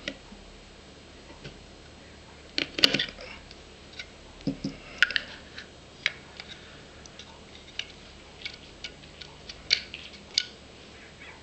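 Light metal clicks and taps of a pin punch and small parts against a SIG Pro SP2340 pistol frame as the trigger pivot pin is punched out. The loudest cluster of clicks comes about three seconds in, another around five seconds, then scattered single ticks.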